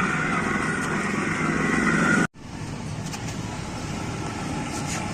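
Motorcycle running steadily. The sound breaks off abruptly a little over two seconds in and then carries on more quietly.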